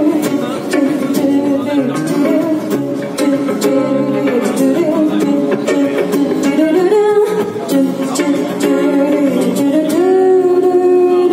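A live band playing a song: strummed guitars, electric guitar and drums under a sung melody, with regular drum hits. A long held note begins near the end.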